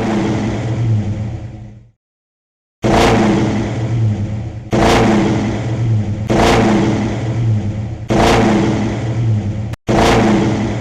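Car engine revving in a string of short segments, each starting suddenly and lasting one to two seconds, with a break of silence about two seconds in.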